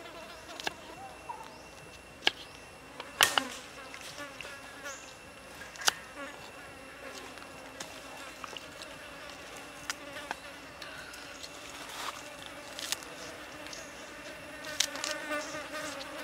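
Knife cutting garlic and spring onions on a wooden chopping board: scattered sharp taps of the blade on the wood, with a quicker run of cuts near the end. Insects buzz steadily underneath.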